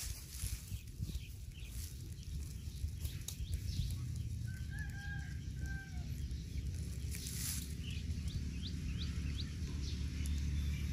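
A rooster crows once, a single long call about halfway through, over a steady low rumble; a few short rising bird chirps follow near the end.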